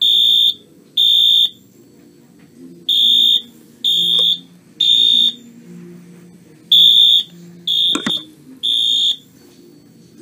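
A 1997 Wheelock AS-24110W fire-alarm horn strobe sounding its high electronic horn in the temporal-three evacuation pattern: three half-second beeps, a pause, then three more, repeating. It runs on 12 V instead of its rated 20–31 V, and the grille is taped over from behind to damp its volume. A single knock comes about eight seconds in.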